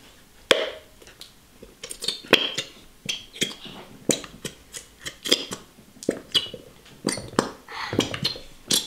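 Plastic squeeze bottles of gold glitter glue being squeezed hard into plastic bowls: irregular squelching and sputtering spurts, several a second, as glue and trapped air are forced out of the nozzles.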